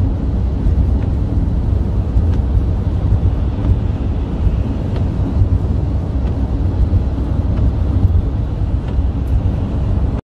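Steady low rumble of a van's engine and tyres on a wet motorway, heard from inside the cab; it cuts off suddenly just before the end.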